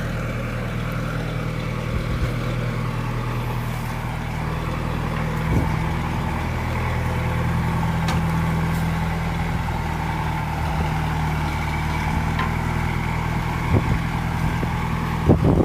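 Vehicle engine idling steadily, a low even hum, with a few short knocks near the end.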